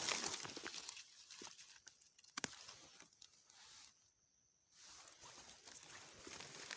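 Dry leaves and plant stems rustling and crackling as they are handled while picking krachiao flowers, with scattered small snaps and clicks. The sound drops out briefly a little past the middle.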